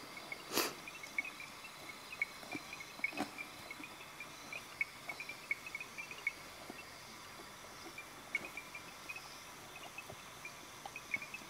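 Evening insects buzzing steadily, with many short high chirps scattered throughout and two sharp clicks, one about half a second in and one about three seconds in.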